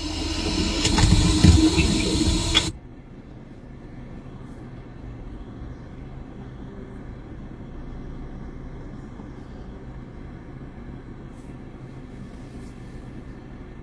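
A loud rushing hiss that cuts off suddenly about two and a half seconds in, followed by a low, steady hum inside a car cabin.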